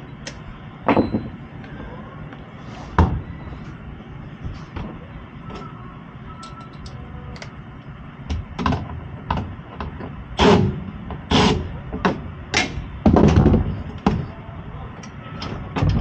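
Knocks and clunks of hands working in a gas furnace's open top compartment, around the inducer motor and vent piping. There are single knocks about one and three seconds in, then a run of louder clunks from about halfway through, over steady background noise.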